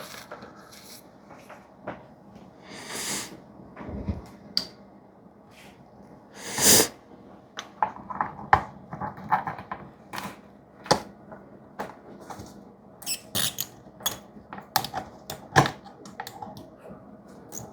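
Scattered light clicks and taps from handling a knife and the parts of a sharpening kit, coming thicker in the second half. There are also a couple of short hissing bursts, like sharp breaths through the nose.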